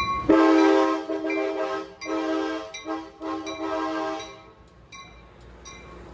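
Passenger train horn sounding four chorded blasts in a long, long, short, long pattern, the last ending about four seconds in. Afterwards a bell dings a few times.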